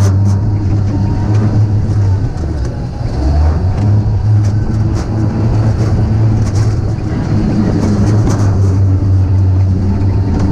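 Wheels of a Wiegand bobkart sled running along its steel track, a steady low rumble with scattered rattling clicks; the rumble drops in pitch briefly about three seconds in.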